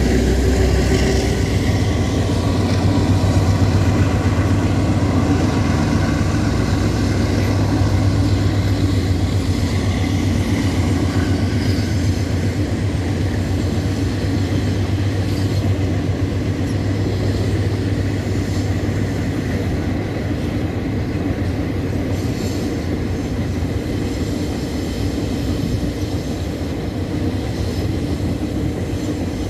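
Standard-gauge freight train's wagons rolling across an elevated concrete viaduct: a steady rumble with a low hum, easing a little after about twenty seconds.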